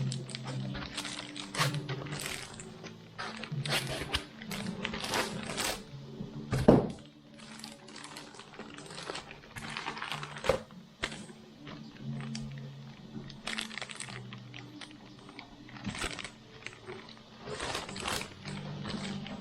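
Hands handling a laptop and its packaging: irregular clicks, taps and crinkling, with one loud knock about seven seconds in and a sharp click a few seconds later.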